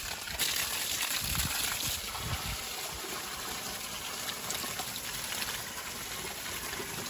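Water gushing from an open garden hose and splashing onto the dirt and grass.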